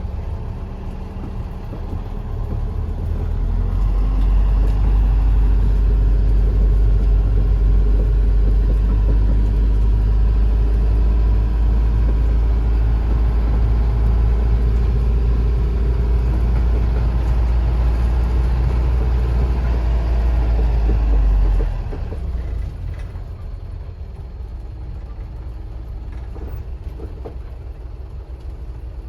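Diesel engine of the Asa Kaigan Railway DMV, a Toyota Coaster-based dual-mode minibus, running on the road in bus mode. It pulls harder about four seconds in and runs steadily and loudly, then eases off sharply about 22 seconds in as the power comes off.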